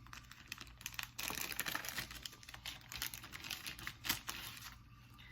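Stiff paper cards being handled and flipped through: a run of light clicks and rustling paper for a few seconds.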